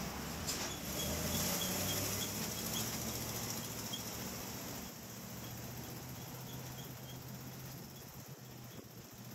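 Car driving slowly, picked up outside the car: a steady low engine and road hum with a hiss over it, louder for the first few seconds and easing off about halfway. A faint high chirp repeats about three times a second through much of it.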